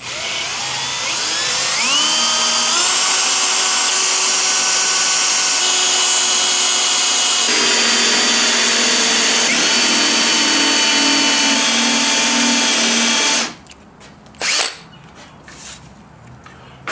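Handheld power drill boring a 1-inch hole into the wooden barrel of a baseball bat held in a vise. The motor whine rises as it spins up over the first couple of seconds, runs steady with small shifts in pitch as the bit cuts, and stops suddenly about 13 seconds in. A short knock follows.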